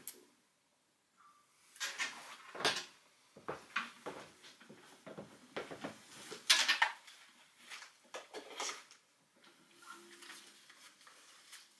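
Handling noise: irregular knocks, clunks and rustling as a person sits down on a wooden stool with an acoustic guitar and settles in among the microphone stands, with the loudest knocks about two and a half and six and a half seconds in.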